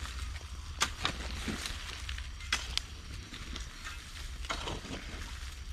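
Shovel digging into soil: a few sharp scraping strikes, mostly in pairs, a second or two apart, over a low steady rumble.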